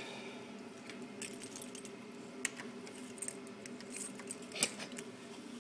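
Scattered light metallic clinks and jingles over a faint steady hum, with a few louder clinks about two and a half and four and a half seconds in.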